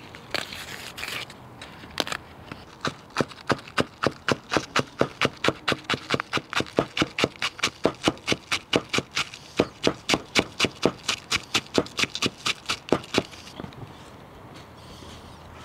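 Chef's knife shredding napa cabbage on a cutting board: a fast, even run of chops, about four a second, that stops about two seconds before the end.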